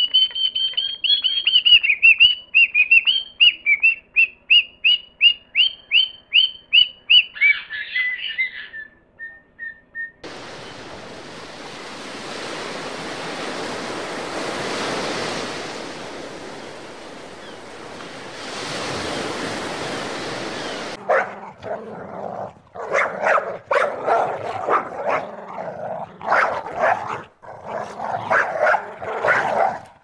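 A white cockatoo calls in a fast run of short, high, repeated notes, about three a second, stopping about eight seconds in. A steady rushing noise without any pattern follows for about ten seconds. Then dogs bark in short, irregular bursts.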